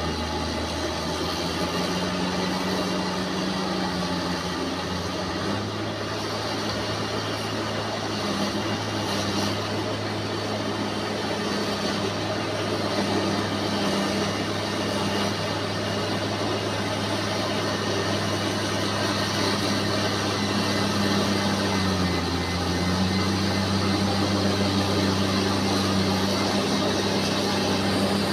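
Bulldozer's diesel engine running steadily, its pitch stepping up about five seconds in and dipping briefly a little past twenty seconds before picking up again.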